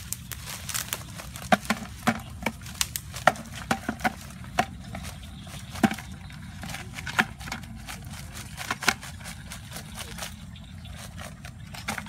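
A cylindrical wire-mesh crab trap is shaken over a plastic bucket as crabs drop out into it, making irregular sharp clicks, knocks and rattles.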